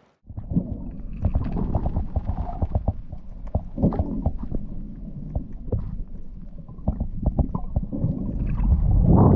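Muffled water sounds picked up by a camera underwater: a low rumble with many small knocks, crackles and bubbling.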